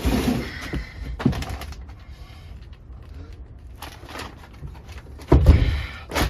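Knocks, scrapes and bumps of a heavy battery and its cables being handled and shifted in a battery compartment, with the loudest heavy thump and scrape near the end.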